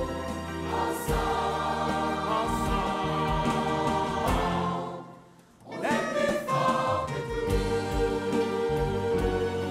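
Mixed choir of men's and women's voices singing in harmony. The music breaks off almost to silence for about half a second about halfway through, then the choir comes back in.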